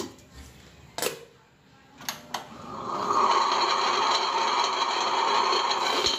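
Vidiem table-top wet grinder: a few clunks as the lid and steel drum are handled, then about three seconds in the motor comes on and the drum with its stone rollers runs loudly and steadily as the soaked urad dal starts going in.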